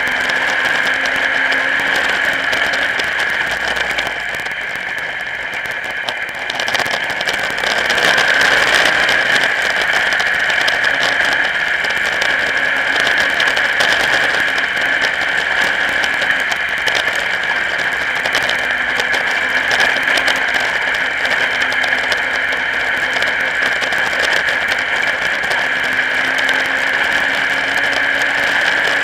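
Modified race car engine running at racing speed, heard through heavy rattle and wind rush on the onboard camera. The engine note rises several times as the car accelerates out of corners. It drops briefly about four seconds in and comes back louder at around seven seconds.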